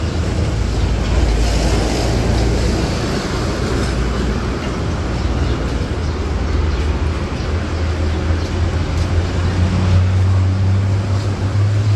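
Street traffic: vehicle engines running under a steady din of road noise, with a low engine hum growing louder near the end.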